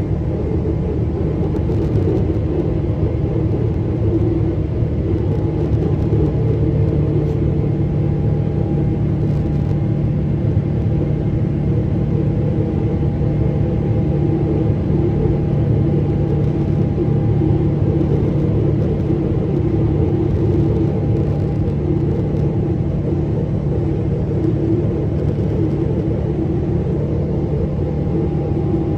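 Boeing 777's turbofan engines during the climb after takeoff, heard inside the passenger cabin as a steady rumble with a held hum over it.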